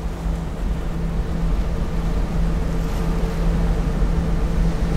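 A ship's engine running with a steady low hum over an even rushing noise of wind and water, getting a little louder in the first second or two.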